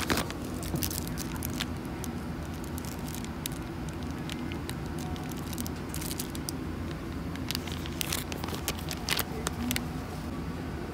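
Clear plastic wrapping of an airline amenity kit crinkling as it is handled, in short scattered crackles. Behind it runs the steady hum of an airliner cabin.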